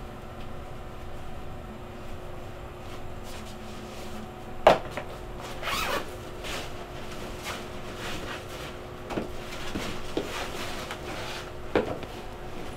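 Scattered knocks, clicks and rustling handling sounds, the loudest a sharp knock a little under five seconds in and another near the end, over a steady low hum.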